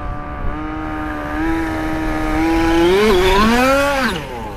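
Small two-stroke engine of a 1/5-scale gas RC buggy, holding a steady low throttle and then revving up about two and a half seconds in. The pitch climbs unevenly and drops away sharply near the end.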